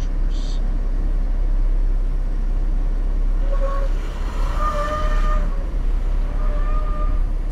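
Jeep Wrangler Rubicon crawling up a slickrock ledge, its engine a steady low rumble. A high squealing whine comes and goes a few times in the middle.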